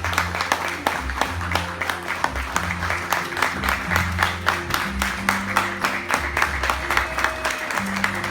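An audience clapping steadily over music with a bass line of long held notes.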